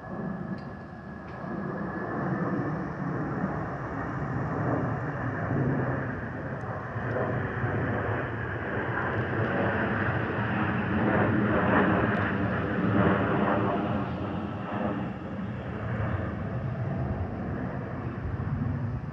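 Jet engine roar from an Airbus A321's twin CFM56-5B turbofans as the airliner passes low overhead. The rumble builds over the first few seconds, peaks a little past the middle and then stays loud. A thin high whine at the start fades as the roar grows.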